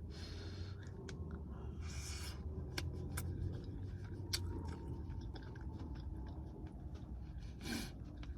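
A person chewing a hot forkful of butter beans with bacon, with a few short breathy sounds and small sharp clicks, over a steady low rumble.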